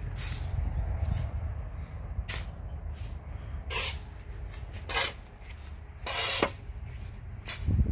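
Shovelfuls of sand being thrown onto a dump truck's sand load by hand: six short swishes about every one to two seconds, one near the end of the run longer than the others. A steady low rumble runs underneath.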